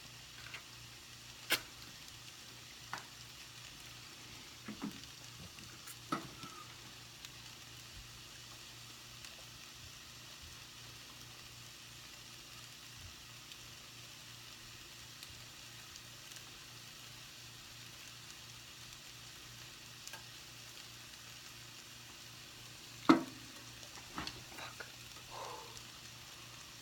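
Faint steady sizzle of food frying in a pan, broken by a few short clicks and knocks, the loudest about 23 seconds in.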